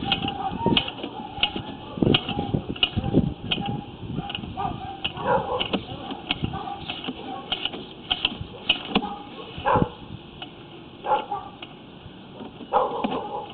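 Sewer inspection camera and its push cable being fed through a clay sewer lateral: irregular knocks and scraping, with a light steady ticking about three times a second.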